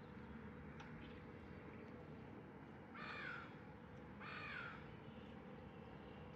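A crow cawing twice, two harsh calls about a second apart, over a faint steady outdoor background hum.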